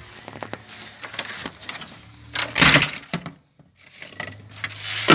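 Handling noise from work on a plastic front grille: light clicks and knocks, then two loud scraping, rustling rushes about two and a half seconds apart, over a low steady hum.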